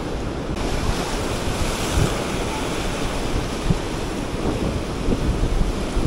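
Surf washing and foaming over shoreline rocks, with wind buffeting the microphone in low gusty rumbles.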